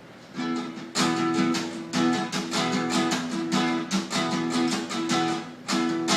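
A guitar strumming chords in a steady rhythm, the opening of a song, starting about half a second in with a strong stroke about once a second.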